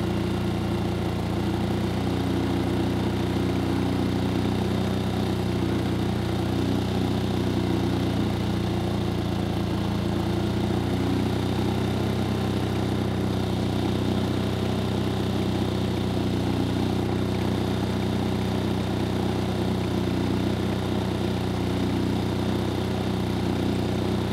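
Yamaha EF3000iSE inverter generator's single-cylinder four-stroke engine running at a steady speed under a 2500-watt heater load, holding an even pitch and level throughout.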